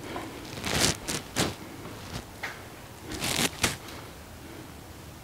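Hands handling tape against the cabinet's aluminium extrusion frame: short rustling scrapes, a few about a second in and a few more about three and a half seconds in.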